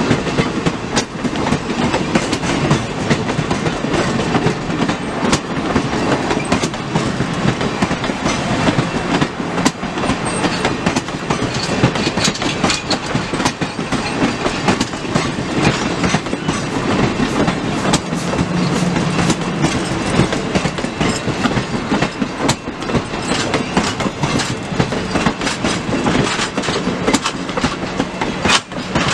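Steel passenger cars of a train rolling past close by: wheels clicking over the rail joints with many irregular clacks over a steady rumble and rattle.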